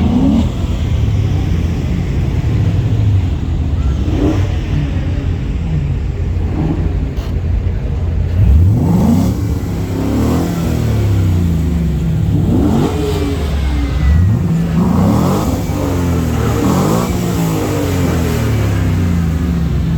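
Car engines revving and accelerating along a street, with repeated sharp rises in pitch that drop back, the busiest stretch in the second half. Steady traffic and engine noise runs underneath.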